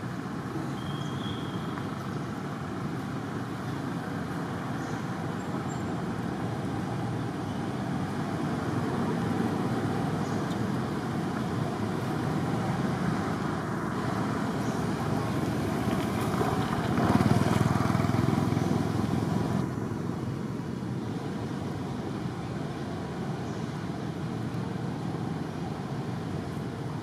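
Steady background rumble of distant road traffic, louder for a few seconds about two-thirds of the way through.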